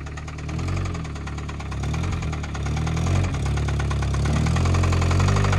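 Honda Civic's four-cylinder engine running under light throttle while the car is eased along the trailer deck, its sound slowly growing louder.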